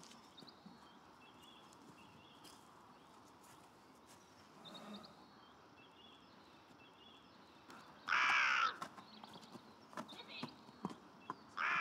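Crow cawing twice in the second half, two harsh, loud caws about three and a half seconds apart, over a quiet outdoor hush with faint small-bird chirps.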